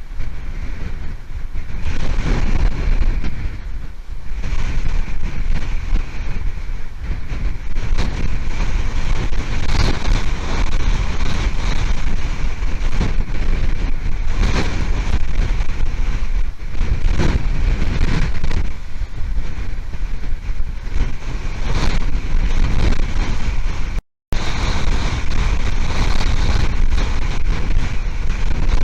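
Hurricane-force wind buffeting an outdoor nest camera's microphone: a loud, low rumble that surges and eases with the gusts, with a split-second dropout near the end.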